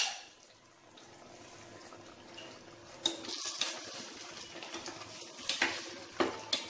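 A sharp clink at the very start, then mutton korma sizzling and simmering in ghee in a steel pot. From about three seconds in, a spatula stirs the meat, with irregular scrapes and clicks against the pot.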